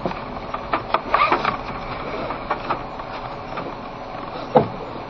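Car driving slowly on a snow-covered road, heard from inside the cabin: steady tyre and road noise with irregular clicks and knocks, a louder knock near the end.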